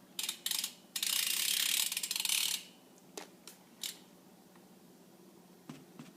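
Ratcheting of a BMX bike's rear cassette hub freewheel as the drivetrain is turned, giving rapid clicking. Two short runs of clicks come first, then a longer run of about a second and a half, then a few single clicks.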